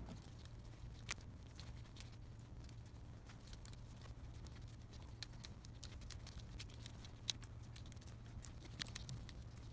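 Faint rubbing and scratchy handling of a cloth wiped by a gloved hand over a walnut board, with scattered small clicks and ticks, over a steady low hum.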